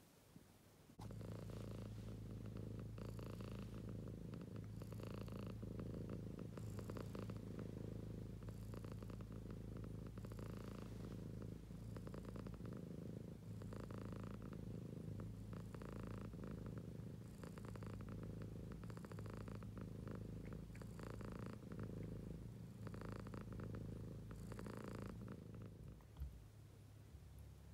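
Domestic cat purring close to the microphone: a steady low rumble that swells in pulses every second or two with its breathing. It ends with a click near the end.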